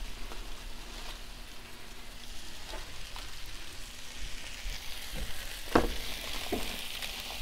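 Food sizzling steadily on a hot gas flat-top griddle, with a few short knocks from the dumbbell-weighted sheet pan pressing a foil-wrapped sandwich, the loudest a little under six seconds in.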